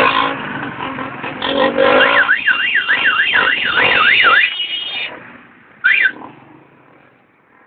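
A vehicle's electronic siren warbling rapidly up and down, about three sweeps a second for roughly two and a half seconds. It gives one short chirp about six seconds in.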